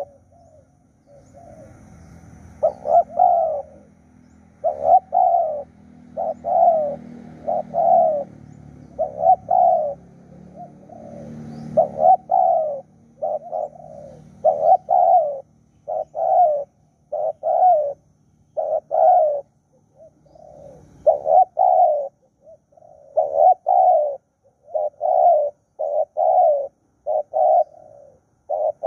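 Spotted doves cooing over and over, about one call a second in runs with brief pauses.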